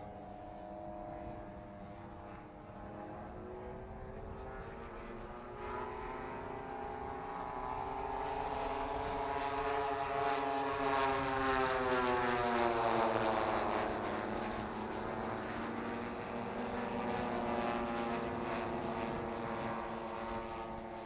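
Propeller engines of a formation of large-scale radio-controlled WW2 fighter models droning overhead, several engine tones overlapping. They grow louder and rise in pitch as the formation passes, loudest about two thirds of the way through, then drop in pitch and ease off.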